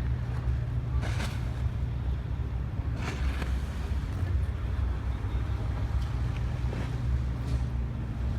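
Boat engine running with a steady low drone, with a few brief gusts of wind on the microphone.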